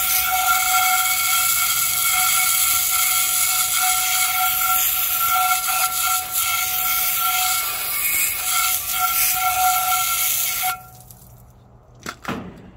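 Garden hose spray nozzle blasting a jet of water onto a cast iron skillet fresh out of the lye tank: a loud, steady hiss with a steady whistling tone through it. The spray cuts off suddenly near the end, followed by two short clicks.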